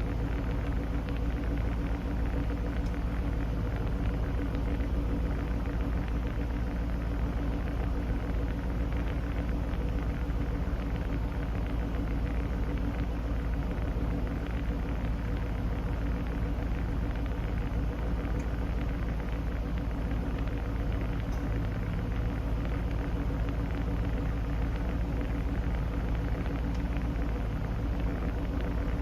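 Inside the cabin, a 2005 Ford GT's supercharged V8 idling steadily while the air-conditioning blower pushes cold air through the vents: a constant low engine tone under an even rush of air, unchanging throughout.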